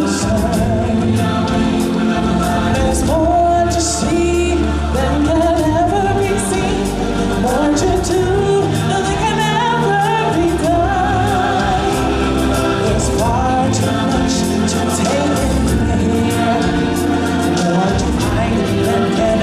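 Live stage-show music: a group of singers in chorus over a band with a steady bass and percussion.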